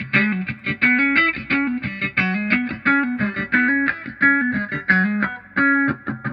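Electric guitar played through a Vox 846 hand-wired wah pedal, a repeating riff of short, clipped single notes several a second.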